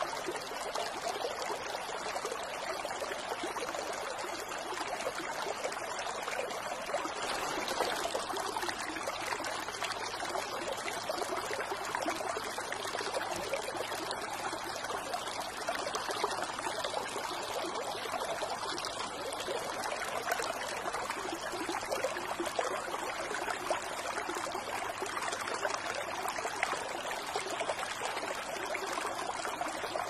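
Water from a bamboo fountain spout pouring and trickling steadily into a basin.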